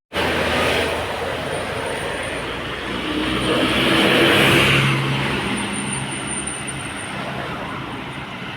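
A road vehicle passing, its engine and tyre noise swelling to a peak about four seconds in and then fading away.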